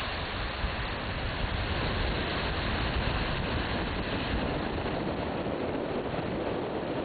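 Wind buffeting the microphone: a steady, noisy rumble whose low end eases about four and a half seconds in.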